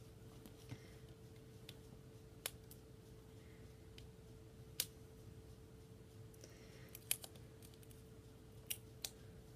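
A few faint, scattered plastic clicks and handling noises from opening a small shampoo bottle, over a steady low hum.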